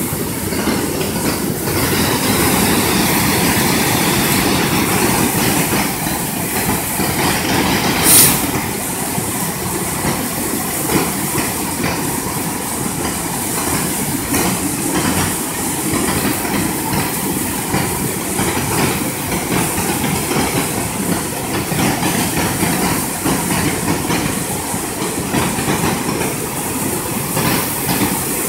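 Steady rushing of river water flowing over a stony bed, with a brief sharp sound about eight seconds in.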